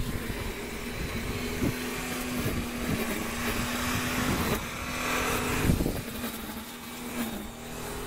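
A steady engine hum. A rush of noise swells over it and then falls away about six seconds in.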